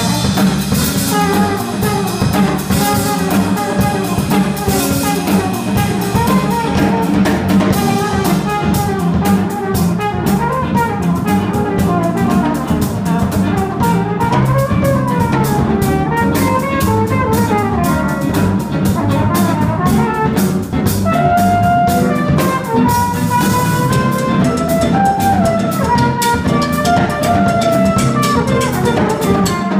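Live jazz-funk band: a flugelhorn plays a solo over drum kit, electric bass and keyboard, its melody bending up and down in short phrases.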